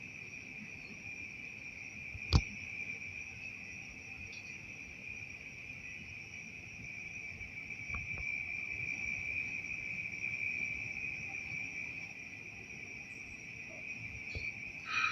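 Crickets trilling in a steady, high-pitched night chorus, with one sharp click a little over two seconds in.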